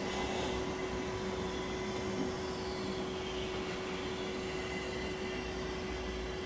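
Steady whine of an electric motor with a rush of blown air, from the electric blower that supplies the air to drive a working model beam engine.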